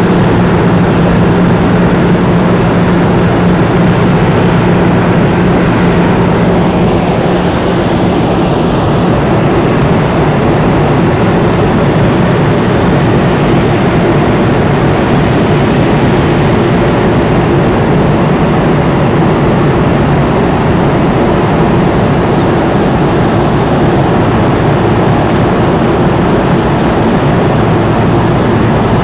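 Steady cabin noise of a jet airliner in flight, engine and rushing air heard through the fuselage from a window seat. A low hum runs under it for the first nine seconds or so, then fades.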